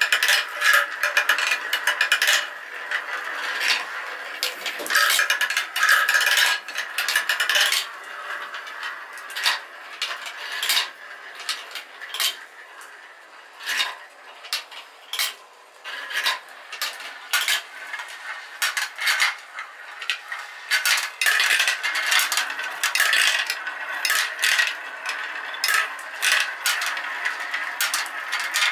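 Glass marbles rolling and clattering through a plastic marble run: rumbling round funnel bowls, knocking against each other and the track, and dropping through chutes, with many sharp clicks. The clicking thins out for a few seconds in the middle, then busies up again.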